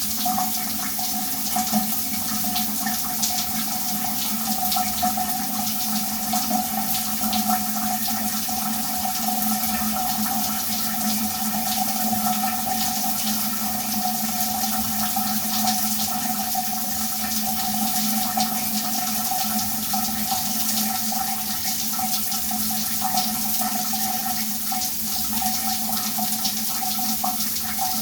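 Shower running steadily: a dense hiss of spray splashing down, with an unchanging low hum and a higher steady tone beneath it.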